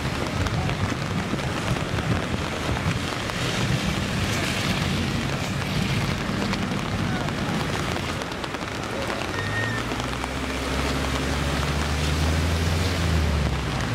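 Floodwater rushing through a street, heard as a loud, even noise of running water and rain. A low, steady engine hum joins it about ten seconds in.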